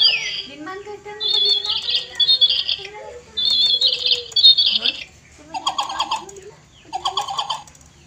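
A battery-powered toy bird in a plastic cage chirping, playing the same warbling tweet phrase twice in a row, then shorter chirps in the second half.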